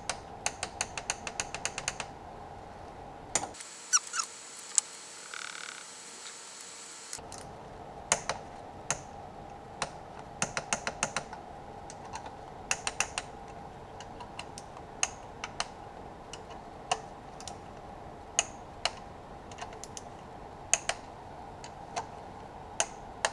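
Ratchet wrench clicking as bolts are turned, in quick runs of about five clicks a second and in single clicks spaced about a second apart.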